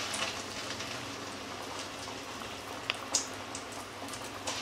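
Masala-battered baby corn pieces deep-frying in hot oil, a steady bubbling sizzle and crackle, with a couple of sharper pops about three seconds in.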